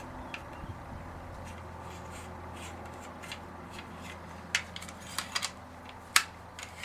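Sig Sauer P229 pistol's slide rubbing and clicking against the frame as it is worked onto the rails during reassembly, not yet seated. Faint scraping at first, then several sharp metallic clicks in the second half, over a steady low hum.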